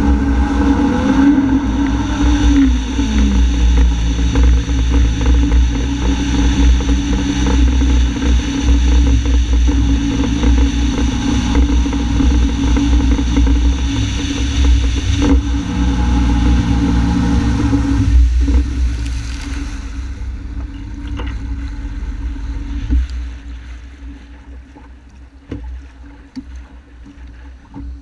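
Honda AquaTrax F-12X personal watercraft's turbocharged four-stroke engine running under throttle, its pitch dropping about three seconds in and then holding steady. After about 18 seconds the engine note falls away and the level drops steadily as the ski slows.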